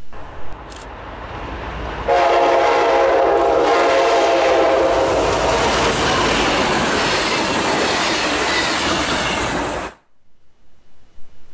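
Passenger train passing close by, its wheels rumbling and clacking over the rails. The locomotive's air horn sounds a long multi-note chord starting about two seconds in and fades over a few seconds. The sound cuts off suddenly near the end.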